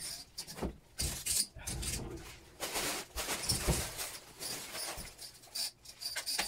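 Empty plastic drink bottles in a clear plastic bag crinkling and rustling as they are handled, with a few knocks of bottles being set down.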